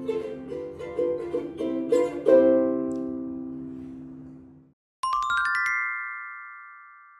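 Instrumental closing music: a light tune ends on a chord that rings and fades away. After a short silence comes a logo jingle, a quick rising run of bright notes that lands on a held chord and fades.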